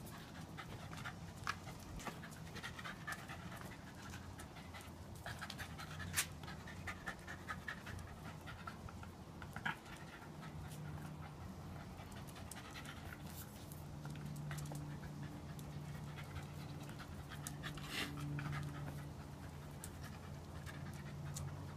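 Welsh Terrier panting steadily as it jumps at and tugs a hanging toy ball, with scattered light clicks and taps.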